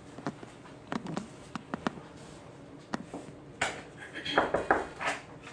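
Scattered light clicks and knocks, then a cluster of louder clattering knocks about four to five seconds in, like hard objects being handled.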